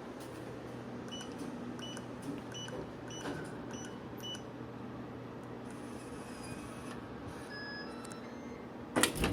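Electronic keypad door lock beeping as a code is keyed in: about six short high beeps, a few other tones later, then a loud clunk near the end as the door is worked. A low steady hum runs under it.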